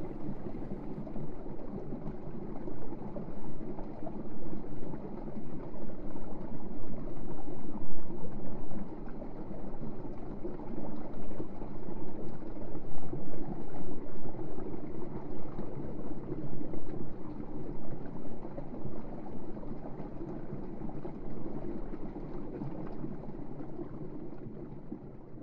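River water running and burbling over stones, fading out near the end.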